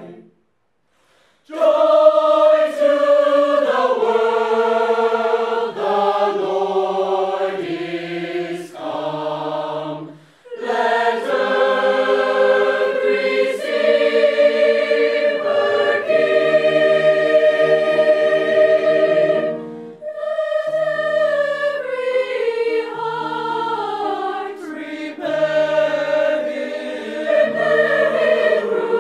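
Mixed-voice teenage choir singing in parts, holding full sustained chords. It starts after about a second and a half of silence, with short breaks about ten and twenty seconds in.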